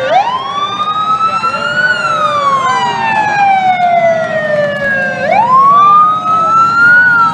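A siren wailing: it rises for about two seconds, falls slowly, then rises again about five seconds in, over the steady noise of a crowd.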